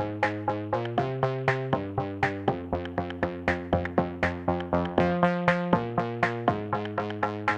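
Background electronic music: synthesizer chords over a steady beat of sharp hits about four times a second.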